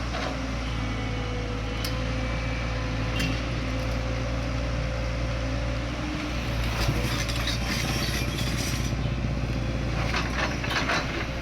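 Heavy diesel engine of a JCB earthmoving machine running steadily under work, with a steady whine above it. Bursts of crackling and clattering come in about six and a half seconds in and again near the end.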